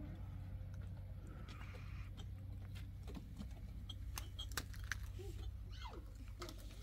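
Outdoor yard ambience: a steady low rumble with scattered light clicks and knocks, and a brief falling call about six seconds in.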